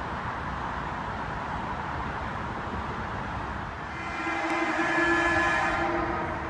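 A Metro-North commuter train sounds its horn once, a steady chord of several notes held for about two seconds, starting about four seconds in, over steady outdoor background noise.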